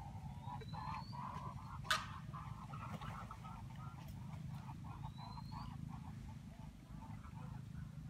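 Birds calling at a lake edge: a run of short repeated calls, a thin rising whistle twice, and a sharp click about two seconds in, over a steady low hum.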